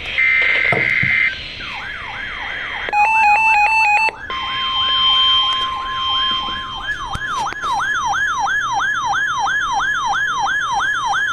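Weather alert radios going off for an incoming alert: a siren-style alarm sweeping down in pitch about twice a second, over a steady NOAA Weather Radio alert tone that comes in about four seconds in. A short burst of stepped beeps sounds around three seconds in.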